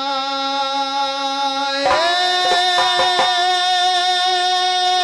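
Rajasthani folk-theatre music: a male voice holds long sung notes over harmonium, stepping up to a higher note about two seconds in. A few drum strokes fall just after the change.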